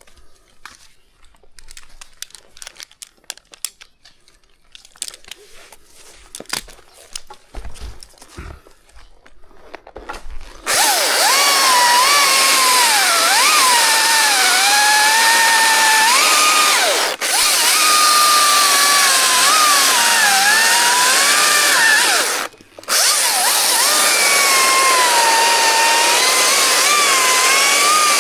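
Faint clicks and rustles, then about a third of the way in a two-stroke chainsaw starts running at high revs. Its pitch dips and recovers again and again as the chain bogs in the cut. The sound drops out briefly twice.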